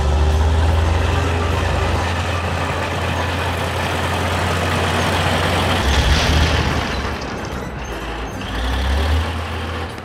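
Cartoon sound effects of a wheeled excavator's engine running with a deep steady drone. About six seconds in a crash and rumble of rock breaking apart in the hillside.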